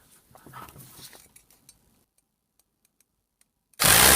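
A few faint clicks, then silence, then near the end the AEG BH25 rotary hammer drill is switched on and its motor runs loud. The owner reads this sound as a sign that the tool needs lubrication.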